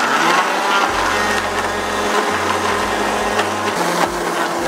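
Countertop blender motor running steadily, its blades chopping arugula, walnuts, garlic, parmesan and olive oil into a pesto.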